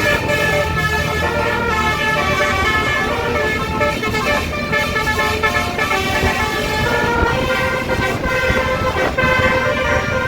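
Telolet basuri musical horn on a tour bus playing a tune in held notes that step from one pitch to the next, over the low rumble of the bus.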